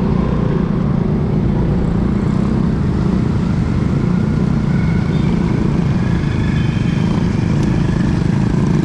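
Steady low rumble of riding a bicycle along a city road: wind on the microphone mixed with motor traffic. Faint higher tones come and go in the second half.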